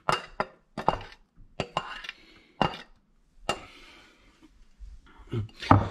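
A string of short metal clinks and knocks: a stainless-steel box grater tapping against a metal mesh sieve and bowl as grated potato pulp is emptied into the sieve.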